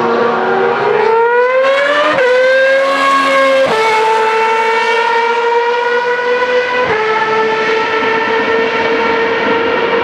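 Single-seater racing car engine accelerating hard through the gears. The pitch climbs and drops sharply at upshifts about two seconds in, again near four seconds, and again near seven seconds, then holds steady.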